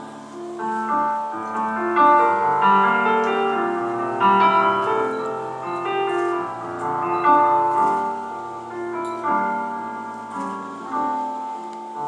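Instrumental break of a slow ballad: piano-led backing music plays chords and a melody, with no singing.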